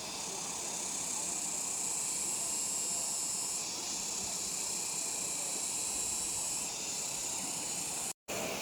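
Steady rushing hiss of a waterfall, with a brief dropout to silence near the end.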